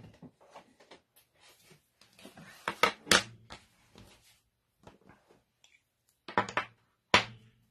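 Clicks and knocks of plastic craft supplies handled on a tabletop: a stamp ink pad case set down about three seconds in, then a clear acrylic stamp block picked up with a few more knocks near the end.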